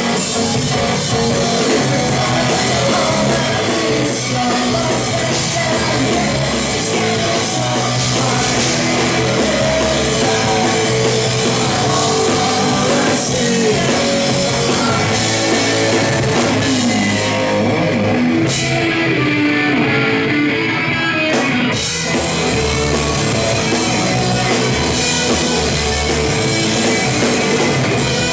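Live rock band playing loud: electric guitars and a drum kit, with vocals sung into the microphones.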